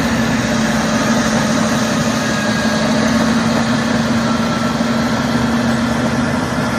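Caterpillar D6R crawler bulldozer's diesel engine running steadily with an even hum as the dozer moves slowly on its tracks.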